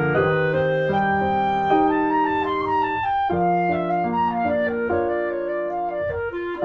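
Instrumental background music: a melody of held notes over sustained chords, with a brief pause about three seconds in.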